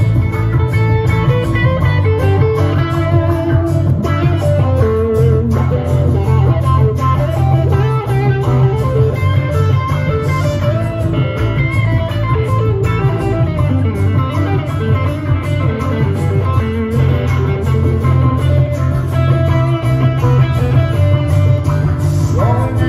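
Live amplified guitar playing an instrumental passage of a song, with a steady low bass part underneath. A voice comes back in near the end.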